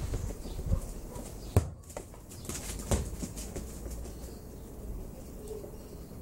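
Three sharp knocks in the first three seconds, the loudest about one and a half seconds in, as a ball is kicked and bounces along a paved path while a dog chases it; quieter scuffling follows.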